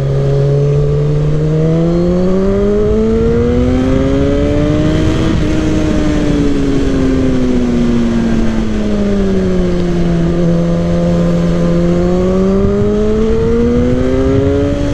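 Suzuki GSX-R 1000's inline-four engine under way, heard from on the bike. The engine note climbs for about five seconds, eases back down, then rises again near the end, over steady wind noise on the microphone.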